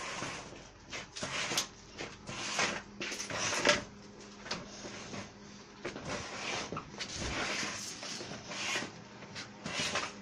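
Irregular rustling, scraping and knocking from rose stems being handled and stripped of their leaves, the loudest bursts coming in quick clusters.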